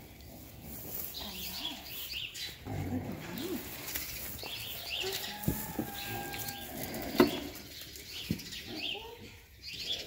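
Rustling of a fabric blanket coat being strapped onto a goat, with a few sharp clicks, the loudest about seven seconds in. Small birds chirp repeatedly in the background.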